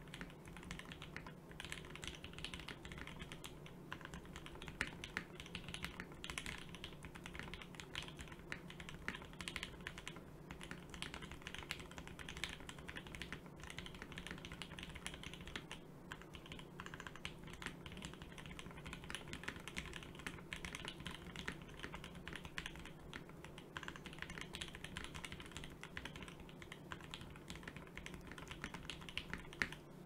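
Continuous typing on a mechanical keyboard with a clacky sound profile: a dense stream of sharp key clicks, with one louder key strike near the end.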